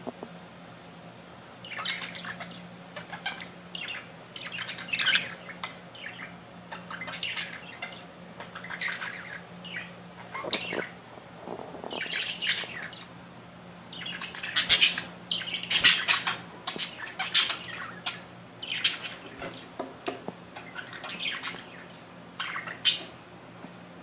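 Budgerigars chattering in a cage: a busy, irregular run of chirps, warbles and sharper squawks, loudest about two-thirds of the way through, over a faint steady low hum.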